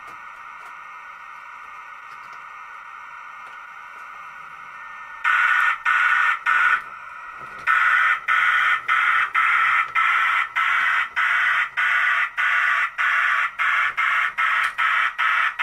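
A G scale model steam locomotive's sound unit hisses steadily, then starts chuffing about five seconds in. The loud chuffs come about two a second and quicken to about three a second as the engine pulls away with its wagons.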